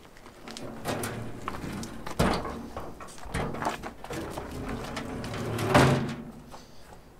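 A heavy rusted metal door moved by hand, giving a run of knocks and scrapes, the loudest a longer heavy scrape about six seconds in.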